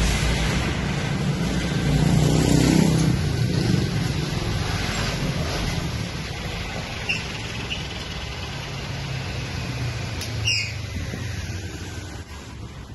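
Street traffic rumble from passing motor vehicles, swelling about two to three seconds in and slowly fading toward the end, with a couple of short high chirps in the second half.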